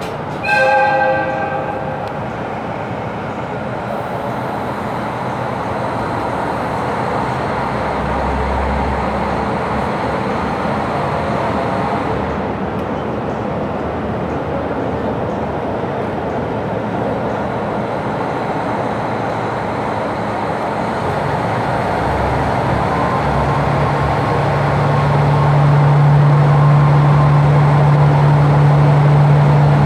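Diesel railcar sounds one short horn blast. Then steady running noise as it moves off, with the engine's low drone growing louder and steadier from about twenty-three seconds in as the train picks up speed.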